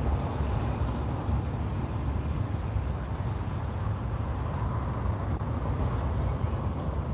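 Wind buffeting a phone's microphone outdoors: a steady, fluttering low rumble with a fainter hiss above it.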